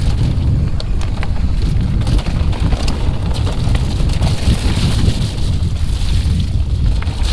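Wind buffeting the microphone of a camera on a mountain bike descending fast, a steady low rumble, with scattered clicks and rattles from the bike over the rough, snowy trail.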